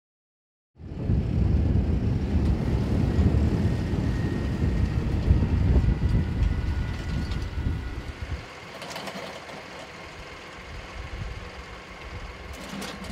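Farm tractor engine running as it pulls a rotary hay tedder, a heavy low rumble that drops to a quieter, steadier level about eight seconds in.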